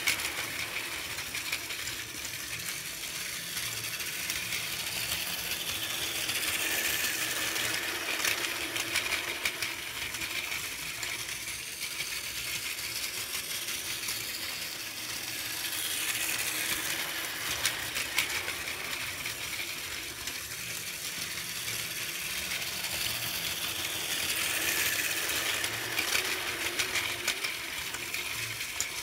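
Battery-powered Plarail toy train, a 400 series Tsubasa coupled to an E4 series Max Yamabiko, running on plastic track. Its motor and gears make a steady whir, and its wheels click and rattle over the track. The sound grows louder each time the train comes close, about every nine seconds.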